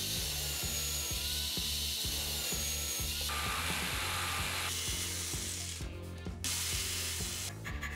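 Bench drill press running and boring into a plywood part, then, about three seconds in, a jigsaw cutting a slot in the plywood, stopping briefly twice, over background music with a steady beat.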